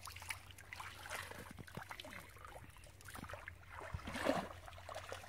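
Shallow muddy water splashing and sloshing as hands and feet work through it while hand-fishing: a string of small, irregular splashes, busier and louder about four seconds in.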